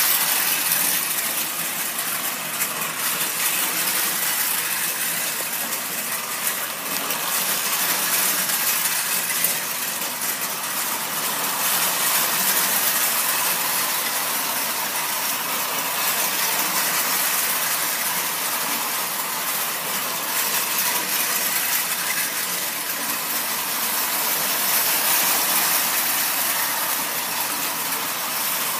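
Marx tinplate toy diesel trains running on the layout: a steady metallic clatter and whir of wheels on tin track and small electric motors.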